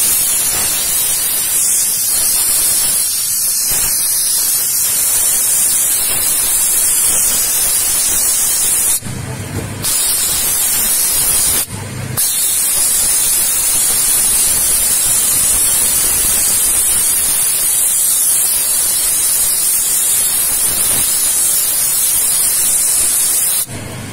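Scarpavapor shoe-cleaning machine's steam lance blasting a jet of steam, a loud steady high hiss. It cuts off briefly twice, about 9 and 12 seconds in, as the jet is released and resumed, and stops just before the end.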